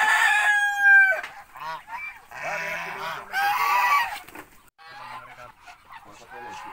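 Domestic geese honking in a flock, several loud calls between about two and four seconds in. A rooster crows once at the very start, a long held call that drops in pitch at its end.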